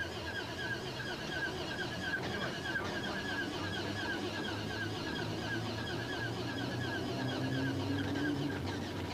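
MG Metro 6R4's V6 engine being cranked on its starter, a rhythmic mechanical whirr at about four beats a second, the engine ailing with the failure that struck the works Metros. A lower steady hum comes in about seven seconds in.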